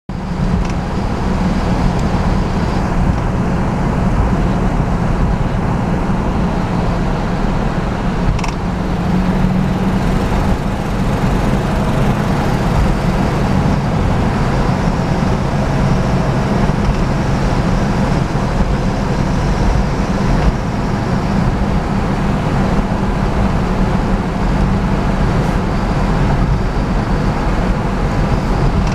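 1970 Pontiac GTO's V8 engine and tyre noise heard from inside the cabin, cruising at a steady speed: an even, low drone.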